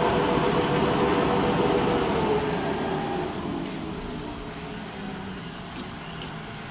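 Industrial overlock sewing head of a four-side quilt-edge sewing machine running at speed with a steady mechanical hum. About two and a half seconds in, its pitch falls and it grows quieter as it slows.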